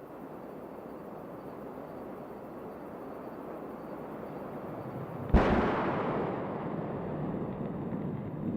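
Falcon 9 rocket launch noise heard from a distance: a rumble that slowly grows louder, broken about five seconds in by a sudden loud crack that fades into a continuing rumble.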